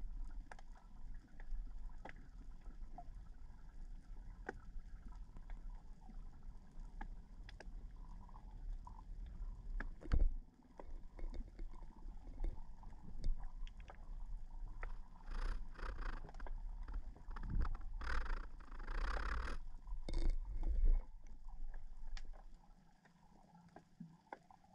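Underwater sound picked up through a camera's waterproof housing: a muffled low rumble of moving water with scattered sharp clicks and a single knock about ten seconds in. About fifteen seconds in, a louder rushing, hissing surge of water and bubbles builds for several seconds, then the sound drops quieter near the end.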